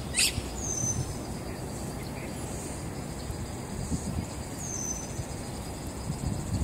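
Outdoor ambience: a steady high insect drone under a constant low rumble, with a short sharp bird chirp just after the start and two brief falling whistles, one near the start and one near the end.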